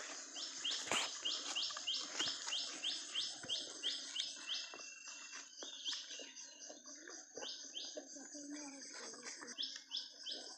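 A bird calling a quick series of short, high chirps, each falling in pitch, about three a second for several seconds, then a few more near the end, over faint knocks and rustling.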